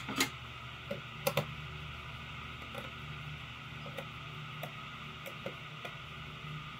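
Light clicks and taps of small laptop screws and a screwdriver being handled and set down on a repair mat: a few sharper clicks in the first second and a half, then scattered faint ticks, over a steady low hum.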